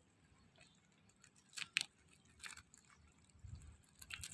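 Green mussel shells being pulled by hand off a barnacle-crusted wall: mostly quiet, with a few sharp crunches and clicks of shell, a pair about one and a half seconds in, a low knock later and more clicks near the end.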